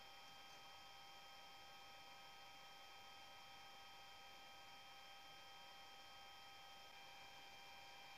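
Near silence: room tone with a faint, steady hum made of a few thin high tones.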